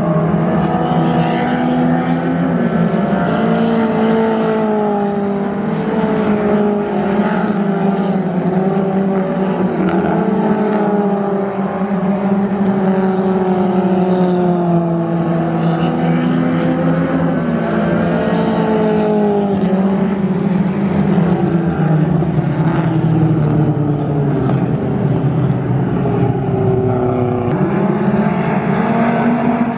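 A field of dirt-track stock cars racing around a clay oval. Several engines overlap, their notes rising and falling as the cars accelerate down the straights and lift for the turns, with repeated pass-bys.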